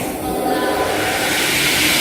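Double-head aluminium cutting saw (Fenstek 08S, 450 mm blades) cutting through an aluminium profile. A sharp click at the start is followed by a harsh, hissing screech that grows steadily louder as the blades bite into the metal.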